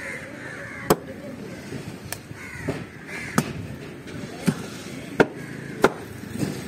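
Heavy fish knife chopping through the flesh of a large barrier trevally: six sharp chops, roughly one a second.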